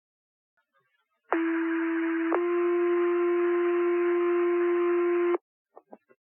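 Two-tone sequential fire pager alert heard over a radio channel, setting off the station's pagers: a first tone of about a second, then a slightly different second tone held for about three seconds, over radio hiss, cutting off abruptly. Two faint clicks follow near the end.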